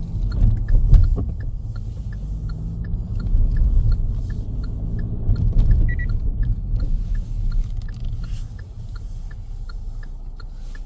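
Car driving, with a low rumble of engine and road noise and a turn-signal indicator ticking steadily about twice a second. A short beep comes about six seconds in, and the rumble grows quieter toward the end as the car slows.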